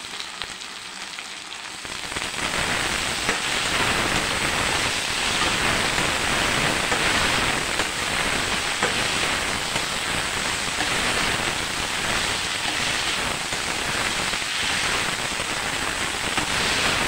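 Okra, shallots and freshly added tomatoes sizzling in hot oil in a non-stick kadai as they are sautéed and stirred with a slotted spatula. The sizzle grows louder about two seconds in, then swells and eases about once a second with the stirring.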